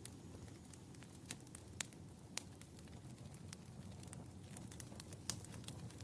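Wood fire burning in a fireplace: a steady low rumble of flames with scattered sharp crackles and pops, the loudest a little after one, two and five seconds in.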